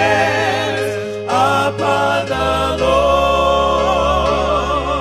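Gospel music: a choir singing held, wavering notes over sustained low bass chords.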